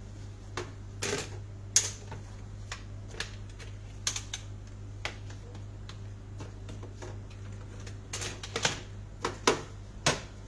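Irregular plastic and metal clicks and knocks as a folding commode chair is handled: its plastic bucket is slid into the chrome frame and the seat cover set down. A steady low hum runs underneath.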